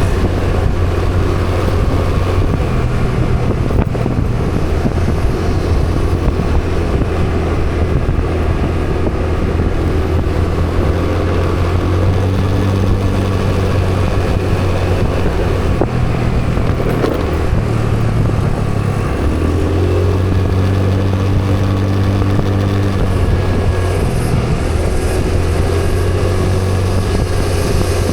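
Vehicle engine running underway, its pitch stepping up and down several times, over steady road and wind noise.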